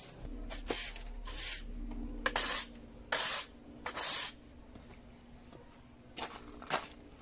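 A stiff long-handled broom sweeping the ground in short, irregular swishes, about eight strokes with a pause in the middle.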